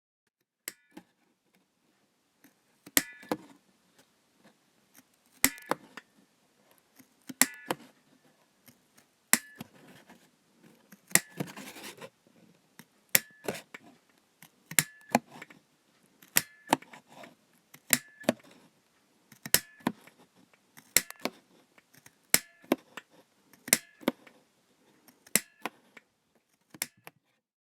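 A train conductor's hand-held ticket punch (pliers-type punch) being squeezed over and over, about fifteen sharp metallic snaps, one every one and a half to two seconds, each with a brief metallic ring.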